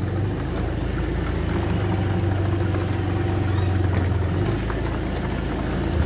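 Casters of a loaded sound-system flight-case rack rolling over a road as it is pushed: a steady low rumble with light rattling.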